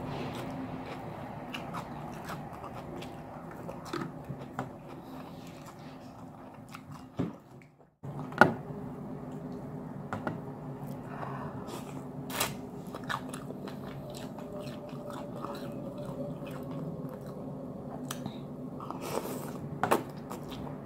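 A person chewing and biting food close to the microphone, with wet mouth sounds, crunches and sharp clicks over a faint steady hum. The sound cuts out for a moment about eight seconds in.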